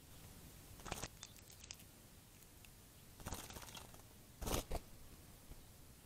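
Short bursts of splashing and wing-fluttering from a female northern cardinal bathing in a shallow ground bird bath: three bursts, the loudest about three-quarters of the way through.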